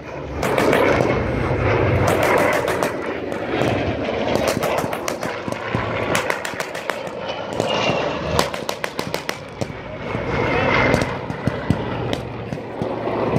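A propeller warplane's engine passing low overhead, swelling in the first few seconds and again later. Over it come repeated rapid strings of sharp bangs: simulated gunfire and pyrotechnic explosions of an airshow battle demonstration.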